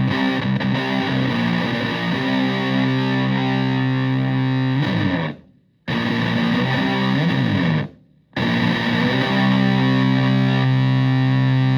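Stratocaster with single-coil pickups through a Tone Bender MKII-style fuzz pedal and a Twin Reverb-type amp, playing thick fuzzed chords. The notes slide and then cut off sharply twice, leaving brief silence. After that a final chord is held and sustains.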